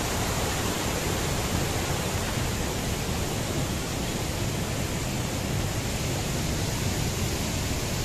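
Steady rush of a waterfall and of white water cascading over boulders, an even noise with no breaks.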